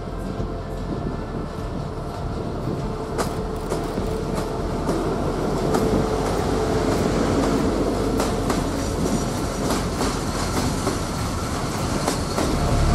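A freight train hauled by an ET42 electric locomotive passing close by, its loaded open coal wagons rolling past with a steady rumble and repeated wheel clicks.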